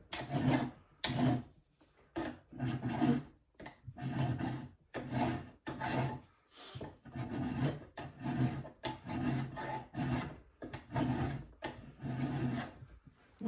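Hand file being pushed in short, rhythmic strokes, about two a second, across a small piece of brass held in a vise, filing a brass offcut down into a wedge.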